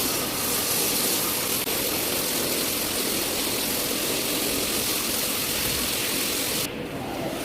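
Rug-cleaning machine running with a steady, hissing rush of spray or suction; it cuts off abruptly near the end.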